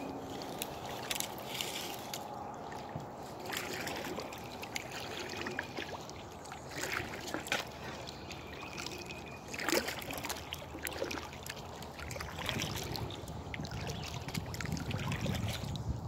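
Kayak paddle strokes dipping into calm water, with dripping and trickling from the blade between strokes and a louder splash about ten seconds in.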